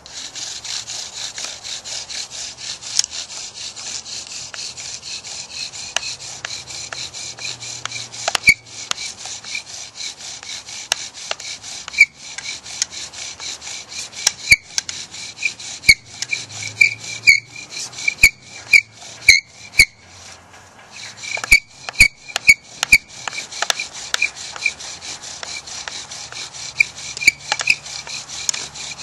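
Bow drill spinning a lodgepole pine spindle back and forth in a lodgepole pine hearth board: a steady rhythmic wooden grinding with each bow stroke. Sharp squeaks and clicks come through in the middle stretch. The hearth is smoking as the friction builds hot wood dust.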